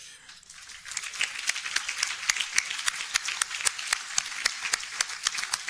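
Audience applauding: many hands clapping at once, swelling within the first second and then going on steadily.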